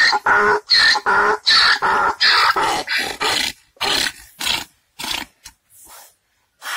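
Scrawny grey donkey braying in a shrill, squeaky voice: a fast run of short, loud bray pulses, about three a second, that grow weaker and more broken after a few seconds and die away near the end.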